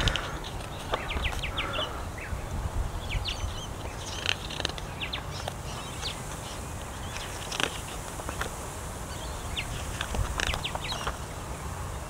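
Many short bird chirps and calls scattered throughout, over a low steady rumble. A couple of brief rustles of book pages being turned come about four and seven and a half seconds in.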